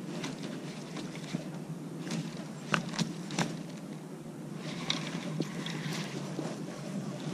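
Rod and baitcasting reel handled while a jerkbait is worked. Three sharp clicks come in quick succession near the middle, over a steady low outdoor rumble.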